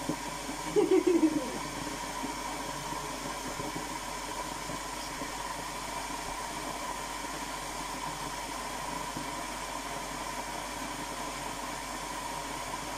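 Steady background hiss with a thin, even tone held through it, like a fan or appliance running. A short voice sound about a second in.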